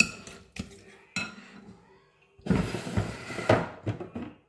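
Kitchen clatter: a few sharp clinks of dishes and utensils in the first second, then about two seconds of louder clattering and rustling.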